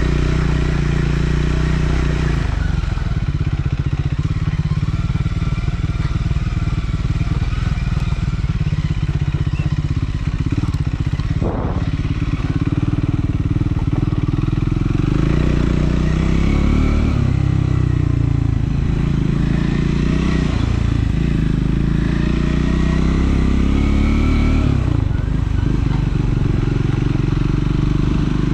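Triumph Scrambler 400 X's single-cylinder engine running on the move. In the second half its note rises and falls over and over as the rider opens and closes the throttle.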